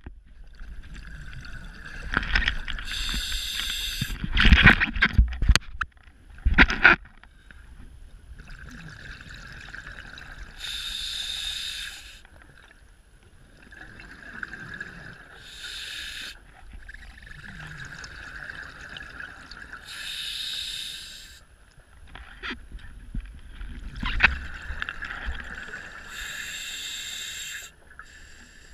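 Scuba diver breathing through a regulator underwater: repeated hissing and bubbling breaths, about one every four to five seconds. A cluster of loud knocks and bumps between about two and seven seconds in.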